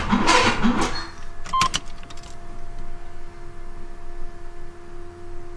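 Starter cranking the freshly rebuilt engine of a GMC Jimmy, a rhythmic chugging about two to three pulses a second, stopping about a second in without the engine catching. A couple of clicks and a short chime beep follow, then a faint steady hum.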